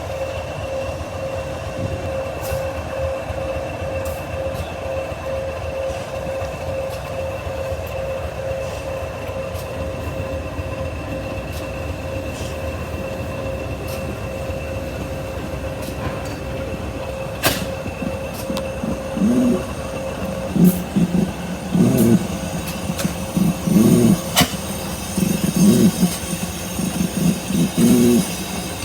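A train at a station platform, with a steady whine and wheel squeal. From about two-thirds of the way in come uneven low clunks, roughly one a second.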